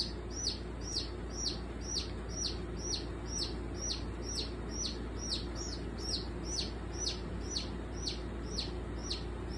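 A chick peeping over and over, about two short, high, downward-falling peeps a second: the distress calls of a chick held in a rattlesnake's jaws.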